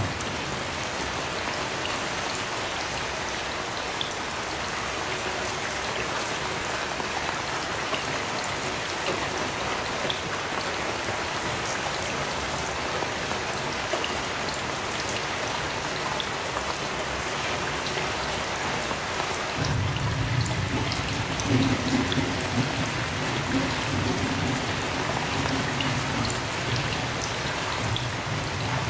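Heavy rain falling steadily, with scattered sharp drop ticks. About two-thirds of the way through, a low rumble of distant thunder sets in and rolls on for several seconds.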